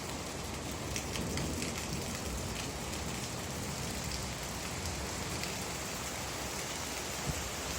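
Steady rain falling, a constant hiss with single drops striking a surface close by, more of them about one to three seconds in.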